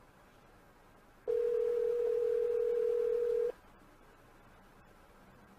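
A single steady electronic beep: one pure mid-pitched tone that starts about a second in and cuts off after about two seconds, with near silence before and after it.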